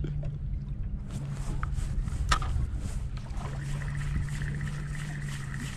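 Spinning reel being cranked, giving a fast even ticking with a thin whine from its gears from about halfway through, over a steady low hum. There is one sharp click about two seconds in.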